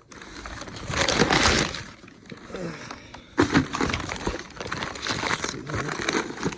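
Packaging rustling and crinkling in irregular bursts as a coilover is unboxed, with scrapes and a sharper burst about three and a half seconds in.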